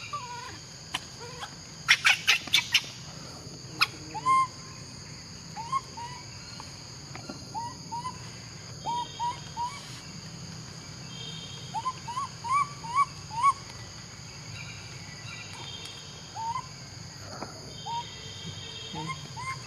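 Short hooting calls, each a quick rise and drop at one pitch, repeated singly, in pairs and in a run of four near the middle, over a steady high insect drone. A few sharp clicks about two seconds in are the loudest sounds.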